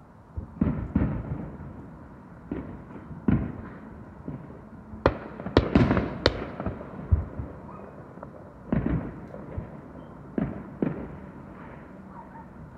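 Fireworks going off: scattered sharp bangs and pops at uneven intervals, most densely in a run of cracks about five to six seconds in.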